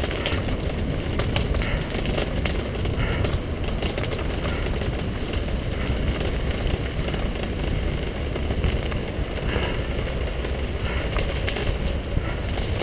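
Wind rushing over the camera microphone and tyres rumbling over a bumpy gravel path at speed, with scattered small rattles and knocks from the jolting.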